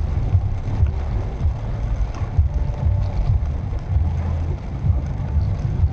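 Maruti Suzuki Swift Dzire driving on a rain-soaked road, heard from inside the cabin: a steady low rumble of road and engine noise.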